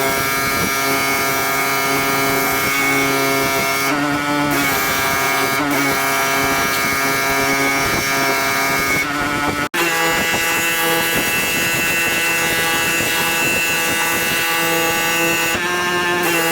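Pressure washer engine running steadily under load, with the hiss of the spray. The sound drops out for an instant about ten seconds in.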